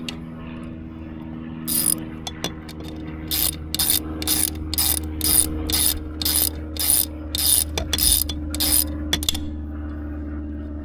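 Hand socket ratchet clicking as a bolt is loosened: one short burst, then a steady run of quick back-strokes, about two a second, that stops about a second before the end.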